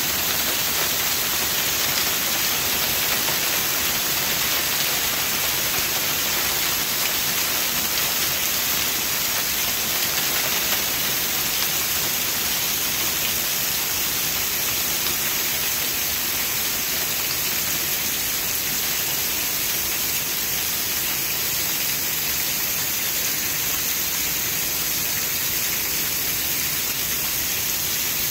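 Heavy hail falling with rain, hailstones pelting the ground in a steady, dense clatter.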